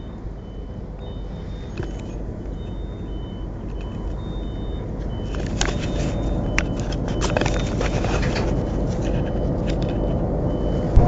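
Train locomotive running, heard from inside its cab: a steady low rumble that gradually grows louder as it gathers speed. Rattles and clicks join about halfway through, and a faint high beep repeats throughout.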